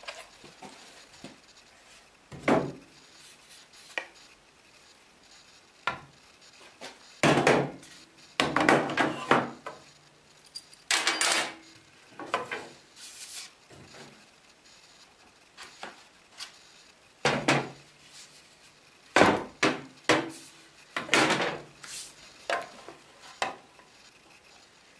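Hand-handling sounds of a plastic sanding block, small metal brackets and an extension pole being picked up, set down and fitted together on a saw table: scattered knocks and clatters with a few short scraping stretches.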